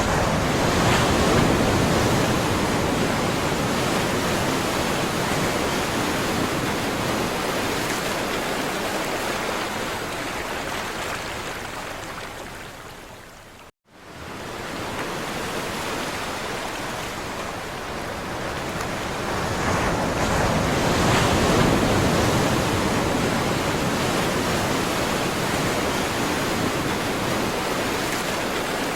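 Ocean surf: waves washing ashore as a continuous rush that swells and ebbs. About halfway through it fades out and cuts to silence for an instant, then resumes at full strength.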